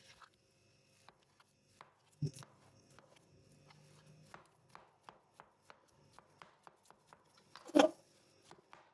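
Kitchen prep sounds: a run of light clicks and taps, settling into about three a second, with a dull knock a little after two seconds and a louder knock near the end.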